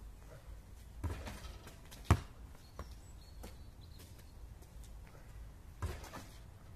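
A basketball on an asphalt court: the shot reaching the hoop about a second in, then a sharp bounce on the asphalt a second later, which is the loudest sound, and another thud near the end.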